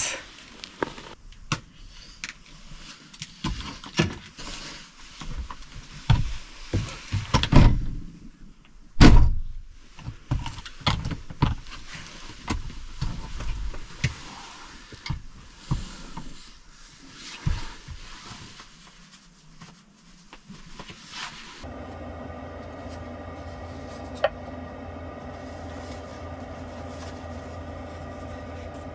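Thumps, knocks and rustling of someone climbing into a small camper and moving about, with one loud thud about nine seconds in. Near the end a steady hum sets in, the camper's FF heater running, with a single light tap over it.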